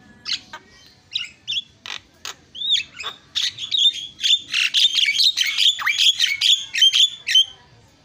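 Javan myna (jalak kebo) singing: a few separate chirps that build into a fast, dense run of whistles and harsh notes, stopping sharply about seven and a half seconds in.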